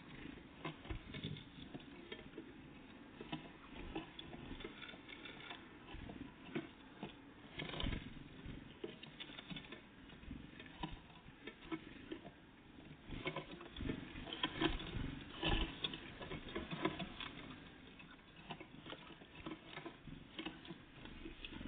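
Irregular light taps and scrabbling of small birds, great tits and blue tits, pecking and landing at a bird feeder. The taps come thicker about two thirds of the way through.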